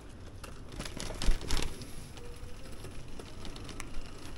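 Steady low rumble of wind and riding noise on the microphone of a moving bicycle, with a few sharp knocks and rattles about a second and a half in and one more near the end.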